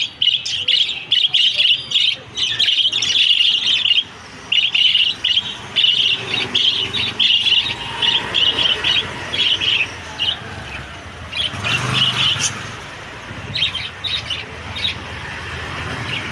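Small pet parrots chirping rapidly and almost without pause, the calls thinning out after about nine seconds. A short burst of noise comes about twelve seconds in.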